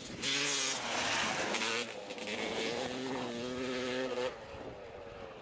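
Dirt bike engine running hard at high revs, loud and close, then dropping away suddenly about four seconds in to a fainter, steady engine sound.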